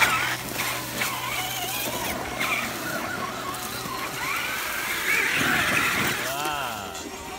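Small electric motors and gearboxes of radio-controlled rock crawlers whining, rising and falling with the throttle as they climb a boulder, mixed with people's voices.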